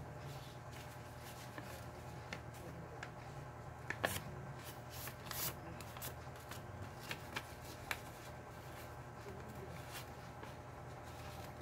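Paper pattern sheets being handled and rustled, with scattered light clicks and taps, over a steady low hum.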